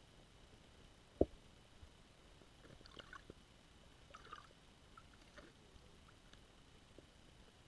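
Muffled underwater sound heard through a camera housing: one sharp knock about a second in, then a few faint scattered clicks and ticks over a low hiss.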